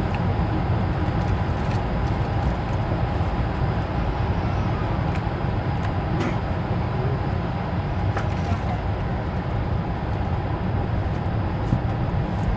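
Steady, loud cabin noise inside an Airbus A220-300 on the ground: a low, even rumble with a faint steady hum and a few light clicks.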